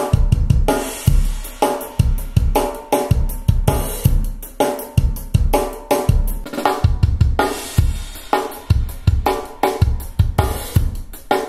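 Drum solo played back through hi-fi tower loudspeakers: a kick drum hitting about twice a second under snare, hi-hat and cymbal strokes.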